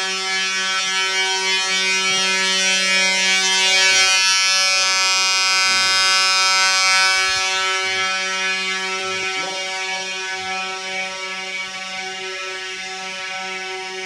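Edwards 892 fire alarm horn strobes sounding continuously with a steady buzzing tone, a little louder and brighter in the middle.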